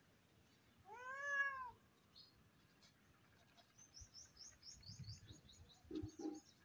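A tabby cat meows once, about a second in: a single call that rises and falls in pitch. Later a fast run of faint high chirps, about six a second, goes on to the end, and two short low sounds come near the end.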